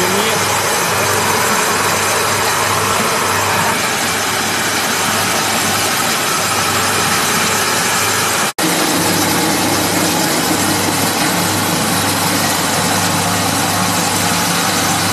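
Small flat-die pellet mill running steadily under load while making feed pellets, a constant mechanical hum with a low drone. The sound cuts out for an instant about halfway through, then the same steady running resumes.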